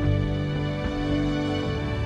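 Background music of long held notes, with the chord shifting a few times.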